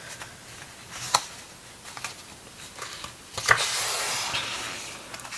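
Pages of a large hardcover art book being handled: a light tap about a second in. Then, about three and a half seconds in, a page is turned with a crisp paper rustle that lasts a second or so.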